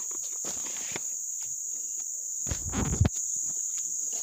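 Insects chirring in one steady, high-pitched drone, with a brief low rustle and thump about three seconds in.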